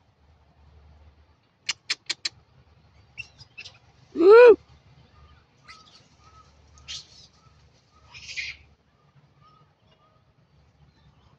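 A single short animal call that rises and falls in pitch, about four seconds in, is the loudest sound; before it come four quick sharp clicks, and after it a few brief scratchy rustles and faint short peeps.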